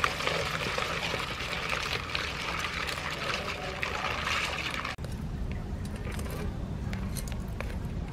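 Live crabs moving and scrabbling in a plastic bowl, a steady crackling hiss. About five seconds in it gives way to crabs on a charcoal grill: scattered sharp crackles over a low rumble.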